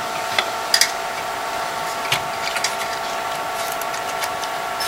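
Scattered light clicks and knocks of hands handling parts inside an opened Amiga 1200 case, over a steady hum made up of several steady tones.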